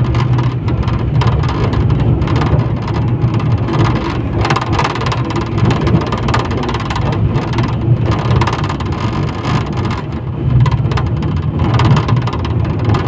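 71-911EM tram running along the track, heard from inside the car: a steady low rumble of wheels on rails and the drive, with frequent irregular knocks and rattles.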